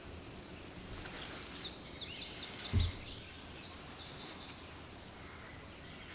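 A songbird singing two short phrases of quick, high repeated notes, about a second apart. There is a brief low bump about three seconds in.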